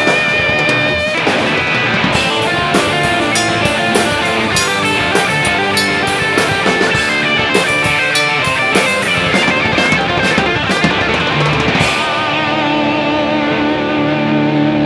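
Rock music with electric guitar and drums. About twelve seconds in the drums drop out, leaving held guitar notes.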